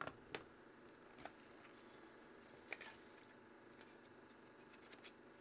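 Near silence: room tone with a handful of faint, scattered ticks from cardboard card packaging being handled.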